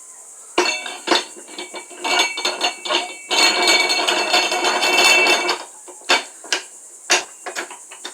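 Tire-dismounting tool knocking and clanking on a steel wheel rim while breaking an old tire's bead, with metallic ringing. Single sharp strikes come first, then a dense clattering run from about three to five and a half seconds in, then several more separate knocks.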